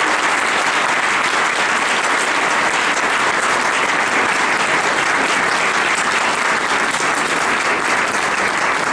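An audience applauding steadily, a dense sustained round of clapping from a roomful of people.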